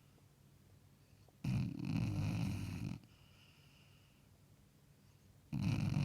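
A sleeping basset hound snoring: two loud, low rattling snores, each about a second and a half long, with a quieter breath between them.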